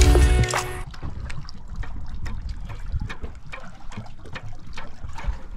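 Music stops about a second in. After it, sea water laps and trickles against the side of a fishing boat, with many small irregular ticks and splashes.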